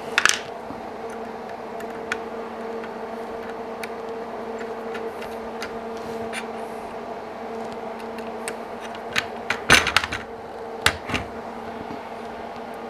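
Small screwdriver and tiny screws handled against a metal rail and plastic parts: scattered light clicks and taps, with a cluster of louder clicks about ten seconds in, over a steady electrical hum.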